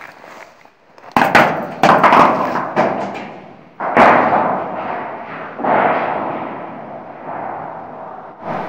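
A caver shuffling through a tight rock squeeze: repeated sudden knocks and scrapes of suit and gear against rock, each trailing off over a second or so.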